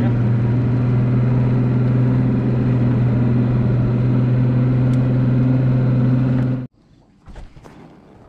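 Bass boat's outboard motor running at a steady speed, a loud even hum that stops abruptly about six and a half seconds in, leaving only a few faint small knocks.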